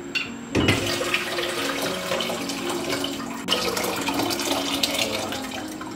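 Hot water poured out of a glass jar of plums, held closed by its lid, into an empty metal pot: a steady splashing stream that starts about half a second in, breaks briefly about three and a half seconds in and then runs on. This is the soaking water being drained off so it can be reboiled.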